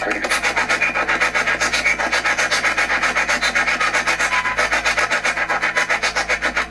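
Spirit box sweeping through radio stations: a loud, rapid chopping of static and radio noise, about ten pulses a second, which cuts off suddenly at the end.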